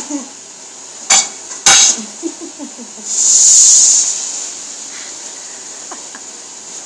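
Two sharp clicks, then a loud hiss of breath lasting about a second, from someone with a mouthful of hot pancake.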